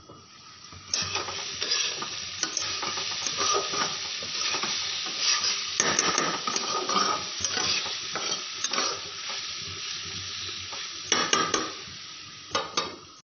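Diced potatoes sizzling in hot oil in a black kadai while a metal spatula stirs and scrapes them. The sizzle starts about a second in, and there are sharp clicks of the spatula against the pan, several of them near the end.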